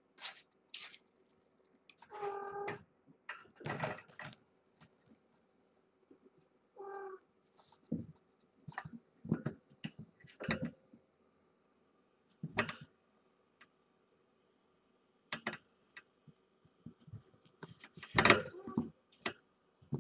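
Kittens at play: a short mew twice, among scattered scuffles, taps and knocks of paws and bodies, with a loud knock about two seconds before the end.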